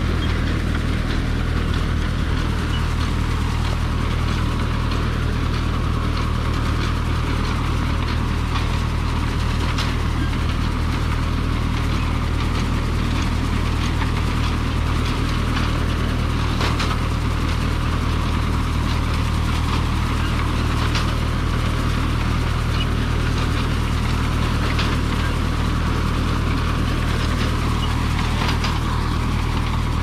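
Tractor engine running steadily at working speed, pulling a McCormick-Deering grain binder through wheat, with the binder's mechanism clattering and a few sharp clacks along the way.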